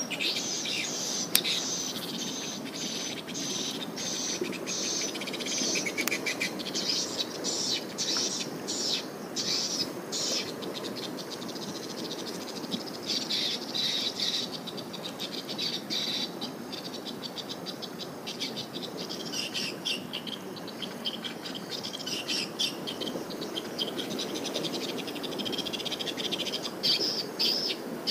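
Swiftlets twittering: dense runs of rapid high chirps that swell and fade over a steady low background noise.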